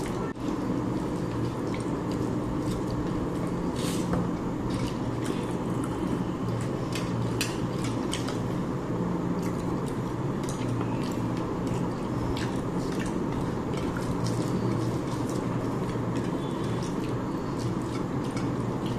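Eating sounds: irregular wet squishing, smacking and small clicks of a rice and fish curry meal being mixed and eaten, over a steady low hum.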